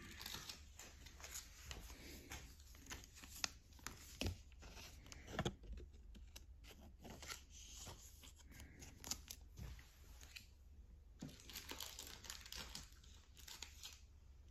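Faint crinkling and rustling of a thin plastic card sleeve, with many small scattered clicks and taps, as a Pokémon card is slid into the sleeve.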